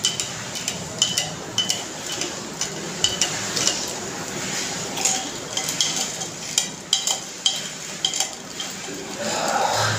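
Metal spoon stirring a drink in a drinking glass, clinking against the glass in short ringing taps about twice a second. A louder scraping sound comes near the end.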